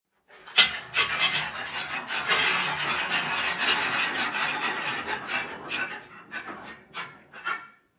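A batch of small balls rolling and clattering down the arches of a wooden rainbow stacker used as a marble run. The dense rattle thins to a few separate knocks near the end as the last balls come down.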